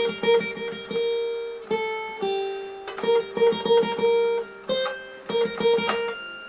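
Acoustic guitar, capoed at the fifth fret, picking a slow single-note melody high on the top strings. It moves between a few neighbouring notes, with several quick trills where two notes alternate rapidly.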